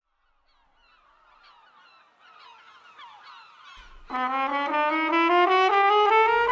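Faint bird calls, repeated falling cries, build up over the first few seconds. About four seconds in, a trumpet enters and plays a slow, sustained phrase that climbs step by step.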